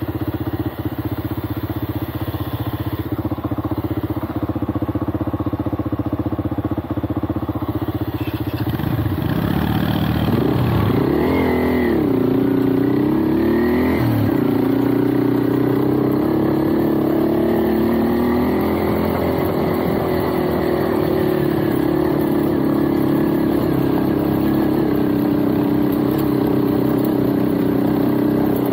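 Motorcycle engine running under way. It holds a steady pitch at first; about a third of the way through, the engine speed rises and falls several times, then it settles into a steady run again.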